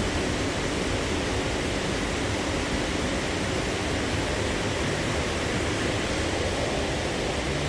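Steady hiss and low hum of a stationary double-deck K set suburban train carriage's ventilation running while it stands at the platform.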